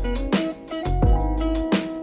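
Background music: guitar over a bass line and a steady beat.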